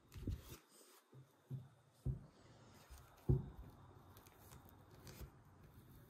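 Hands working the straps and buckles of a cloth buckle dressing frame: fabric rustling, with a few soft bumps as the buckles and wooden frame are handled, the loudest a little after three seconds in.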